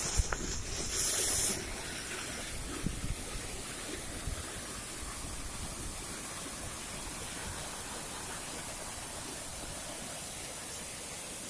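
Glacier-fed waterfall rushing in a steady, hissing roar. About a second in there is a brief, louder burst of noise.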